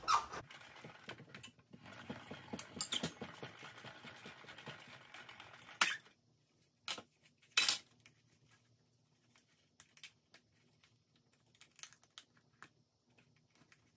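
A hand-cranked die-cutting machine being turned, the plate sandwich rolling through with a rapid run of fine clicks for about six seconds. Then a few sharp clacks and light handling as the plates come out and are separated.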